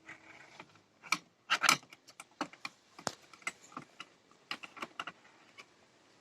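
Irregular clicking and clattering of small hard toy tools and parts being handled and worked on, the loudest clatter about one and a half seconds in.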